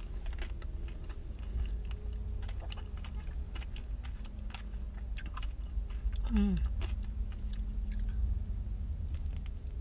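Crunching and chewing on a chocolate-coated ice cream bar with a crisp, nutty coating: many small sharp crunches in quick succession, over a steady low rumble. About six seconds in there is a short hummed 'mm' that falls in pitch.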